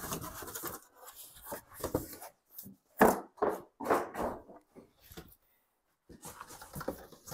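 Rummaging in a large cardboard box: cardboard and packaging rustling and scraping, with a few knocks, loudest about three to four seconds in, then a short lull before the handling starts again.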